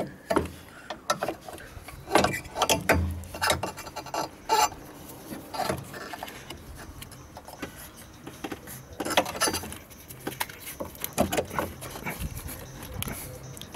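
Irregular clicks, taps and knocks of hands handling an electric brake-booster vacuum pump and its vacuum hose in a car engine bay.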